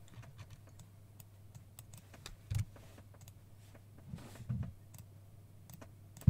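Scattered light clicks of a computer keyboard and mouse being used, with a few duller knocks near the middle.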